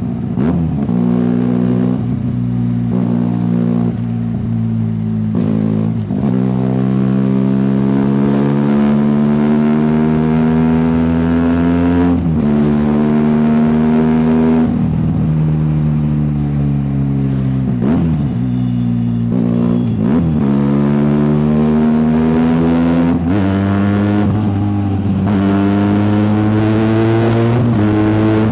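Benelli TNT 300's parallel-twin engine heard through its exhaust, running under load. The exhaust note climbs slowly in pitch over several seconds and then drops back sharply, again and again.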